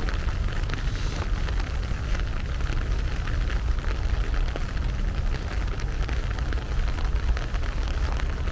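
Steady rain falling: a dense hiss of many small drop ticks over a steady low rumble.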